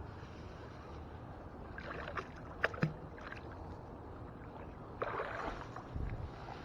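Small scrap metal from a fishing magnet being handled and dropped into a bin: a few sharp clicks about two and a half seconds in, and a short rush of water or handling noise about five seconds in.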